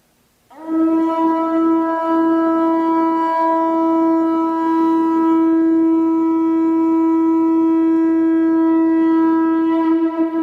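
A conch-shell trumpet blown in one long, steady note that starts about half a second in and is held throughout, rich in overtones, wavering slightly near the end.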